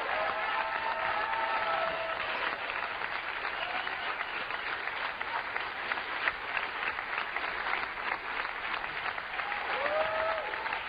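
Large audience applauding in a sustained ovation, many hands clapping steadily, with a few voices whooping and cheering near the start and again near the end.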